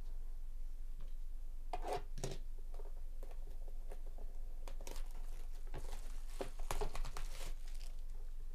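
Plastic shrink-wrap being torn and crinkled off a cardboard box of trading cards, with scattered crackles and a busier stretch of rustling about five to seven and a half seconds in.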